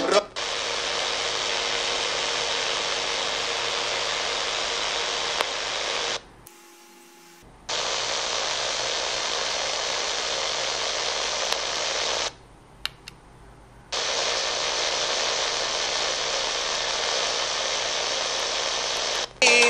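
Steady hiss of static from a portable radio's speaker tuned to empty medium-wave (AM) frequencies. It cuts out twice for about a second and a half as the frequency is changed.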